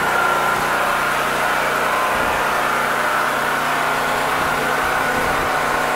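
Steady noise of heavy hurricane rain and wind, with a faint steady hum underneath.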